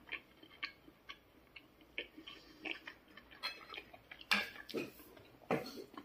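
A person eating pasta: quiet chewing and small irregular clicks of a metal fork against a ceramic plate, with a few louder clicks in the last two seconds.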